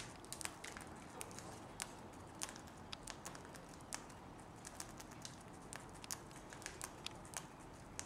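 Cockatiels' beaks cracking millet seeds and tapping a plastic food bowl: quick irregular clicks, a few a second, over a faint hiss.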